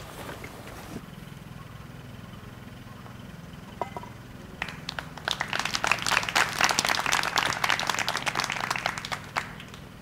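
Golf gallery applauding on the green for about five seconds, starting near the middle, over a steady low hum.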